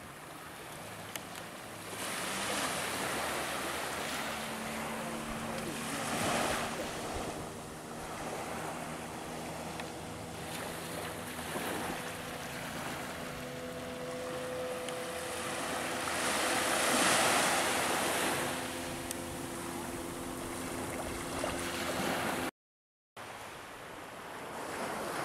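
Sea waves washing onto a sandy beach, swelling and falling back every few seconds, with some wind on the microphone. A steady engine hum from a motorboat runs underneath. The sound cuts out for a moment near the end.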